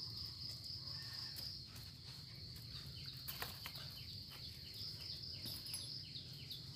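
Faint, steady high-pitched insect trill, like a cricket, with short falling chirps repeating beneath it from about halfway through and a few faint clicks.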